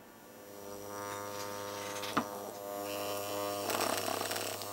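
A DLP TV's image-shifting optical actuator buzzing as it is driven with a 100 Hz signal, growing louder as the drive is turned up towards full deflection. A single click about two seconds in.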